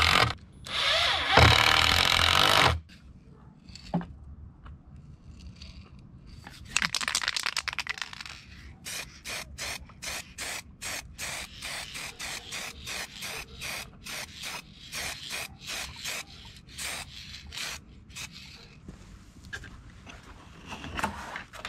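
A loud burst of noise lasting about two seconds at the start. After a quieter gap comes a long run of rhythmic scraping strokes, about two a second, which stops a few seconds before the end.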